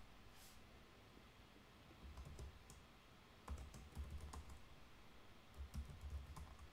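Faint computer-keyboard typing: short runs of keystroke clicks in about three bursts, a little after two seconds in, around four seconds and near the end.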